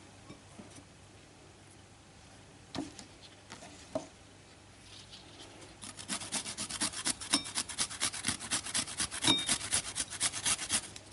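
Fresh ginger grated by hand, scraped back and forth on a grater. A few scattered knocks come first; from about halfway on comes fast, rhythmic scraping, several strokes a second.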